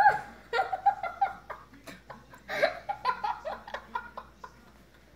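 Laughter in several bursts, dying away near the end.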